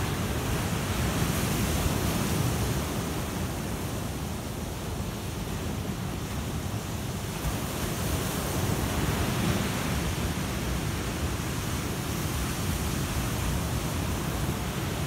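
Ocean surf breaking and washing up a sandy beach: a steady rush that swells louder about two seconds in and again about nine seconds in.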